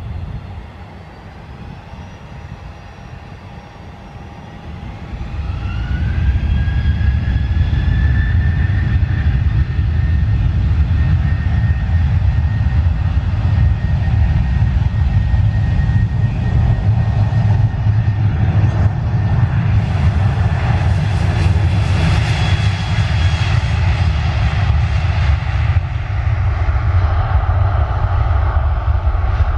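Ryanair Boeing 737 jet engines spooling up for takeoff. A rising whine about five seconds in turns into a loud, steady roar, with a bright hiss swelling about two-thirds of the way through and easing near the end.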